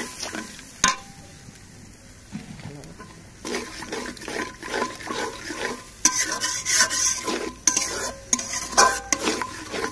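Metal spatula stirring and scraping onion-spice paste around a large metal karahi while the paste sizzles in oil, the masala being fried down after a splash of water. The stirring is quieter for the first few seconds, then comes as repeated scraping strokes that grow louder about six seconds in, with one sharp click about a second in.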